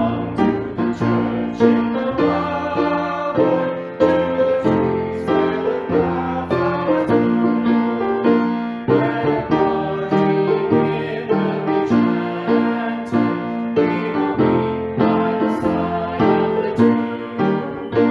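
Piano music: a solo piano playing a flowing piece, with notes and chords struck every fraction of a second.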